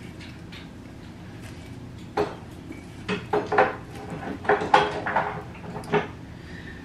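Metal pliers clicking and knocking against the neck of a glass wine bottle as a stuck cork is worked loose, in a string of about eight sharp clinks starting about two seconds in.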